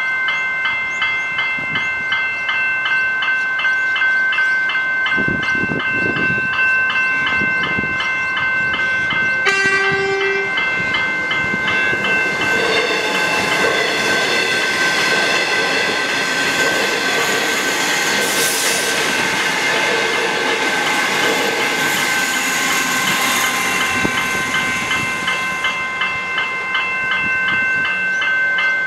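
Level crossing electronic bells (General Signals Type 1 e-bells) ringing steadily, and an electric suburban train passing. A brief horn blast comes about ten seconds in, and the train's wheels and running gear sound from about twelve to twenty-six seconds in.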